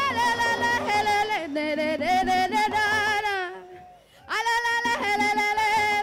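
A woman singing long, held notes into a microphone, her voice gliding from one note to the next, with a short break for breath about three and a half seconds in.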